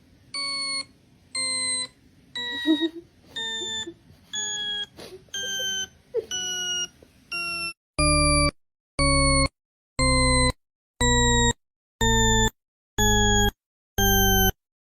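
A series of electronic beeps, about one a second, each held about half a second and shifting slightly in pitch from one to the next. They become much louder about eight seconds in.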